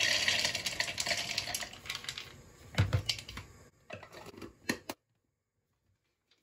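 Roasted peanuts pouring into the plastic bowl of a mini electric chopper, a dense rattling clatter that thins out over about two seconds. Then a dull knock as the emptied bowl is set down on the counter, and a few sharp plastic clicks as the chopper's motor lid is fitted.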